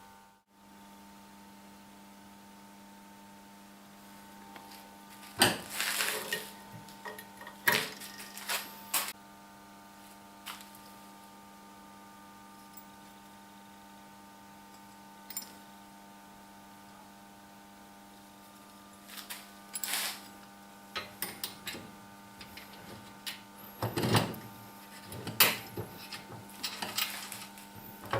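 A steady electrical hum with scattered knocks and clatter, in two busy spells, of hard parts being handled.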